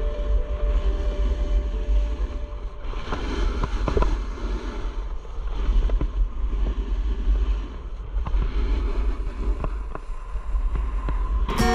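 Wind buffeting a helmet- or body-mounted action camera's microphone during a fast descent, with the hiss and scrape of edges carving across packed snow, swelling and easing with each turn, and a few short knocks from bumps.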